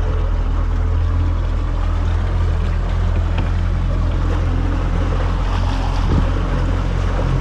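Boat motor running steadily under way: a constant low drone with water and wind noise over it.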